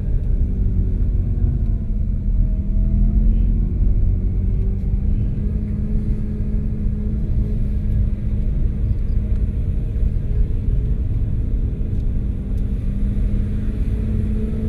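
Car engine running at low speed with a heavy road rumble, heard from inside the cabin; the engine hum stays fairly steady, dipping and rising only slightly in pitch.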